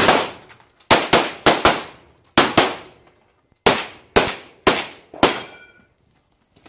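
Handgun fired about eleven times during an IPSC stage. A single shot comes first, then four quick shots in two pairs, another pair, and four more about half a second apart. A brief ringing tone follows the last shot.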